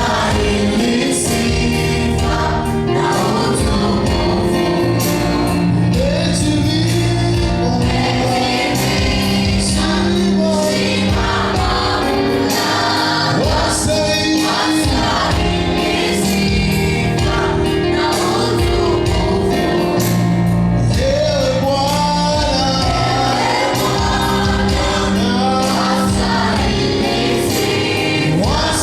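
A choir singing gospel music, with mixed voices and a steady accompaniment underneath.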